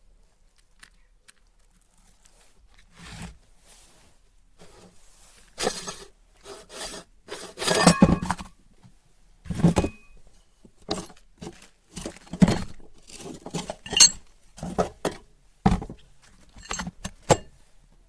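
Hard lollipop candy cracking and clinking in a meat grinder: irregular sharp cracks, clicks and scrapes, uneven in loudness, starting a few seconds in and coming thickest in two clusters.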